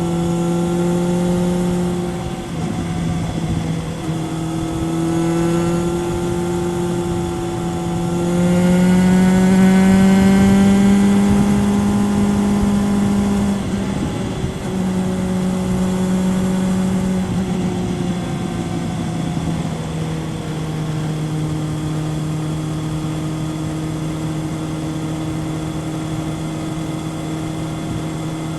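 Kawasaki ZRX 1100 inline-four engine through a Yoshimura exhaust, heard from onboard the moving bike. The engine note drops at two gear changes early on, then climbs to its loudest a little before the middle. It dips again at another shift and settles into a steady cruise for the last third, over a constant rush of wind noise.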